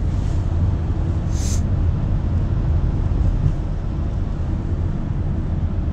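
Steady low rumble of a car riding along, engine and road noise heard from inside the cabin. A short hiss about one and a half seconds in.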